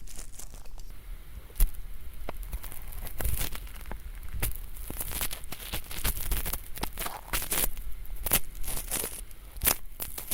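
Ear pick scraping and scratching close against a microphone's ear in many quick, irregular crackly strokes, played as the scratching of thin, flaky earwax. There is one sharper knock about a second and a half in.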